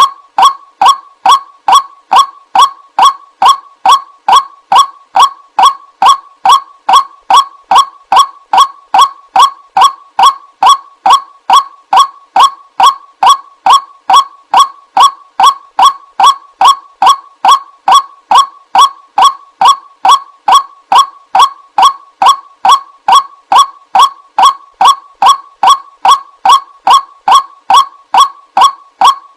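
White-breasted waterhen call played as a bird-lure recording: a single honking note repeated evenly about twice a second, each call alike.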